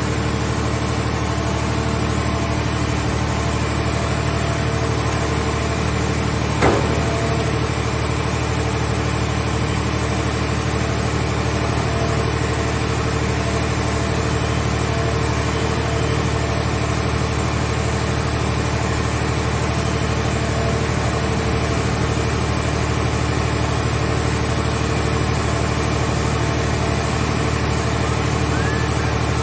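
An engine running steadily at a constant speed, with one sharp knock about seven seconds in.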